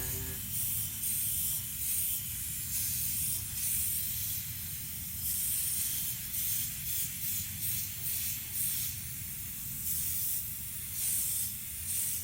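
Repeated short bursts of hissing spray or rushing air, irregularly spaced, a dozen or so, over a steady low hum.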